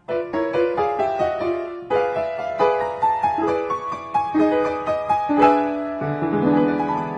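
Piano music: a quick run of short notes, several to the second, with chords lower down.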